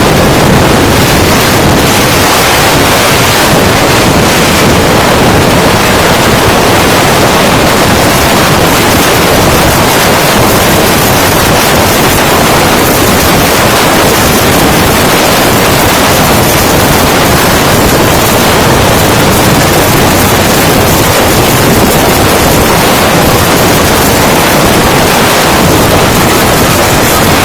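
Hurricane-force wind blowing hard over the microphone: a loud, steady rush of noise with no break.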